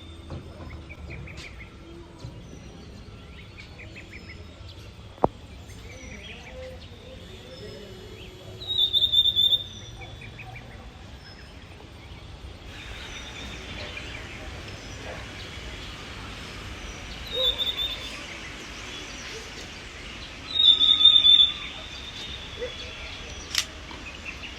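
Wild birds calling and chirping in short bursts, three times much louder, over a steady outdoor background noise that grows into a wider hiss about halfway through. A single sharp click near the start.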